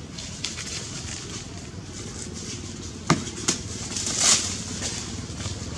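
Dry fallen leaves crackling and rustling as monkeys move and handle fruit on leaf litter. There are two sharp clicks about three seconds in and a louder crunching rustle just after four seconds.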